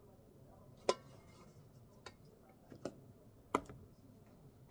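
A spoon clinking and tapping against a bowl while scooping shredded chicken into porridge. There are four short clicks, the first and last the sharpest, and the first rings briefly.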